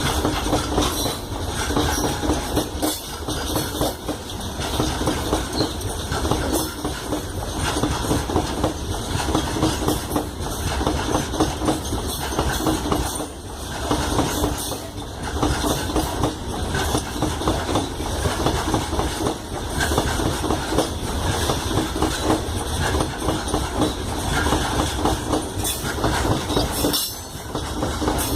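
Freight train rolling past steadily, its wheels clattering over the rail joints in a repeated clickety-clack.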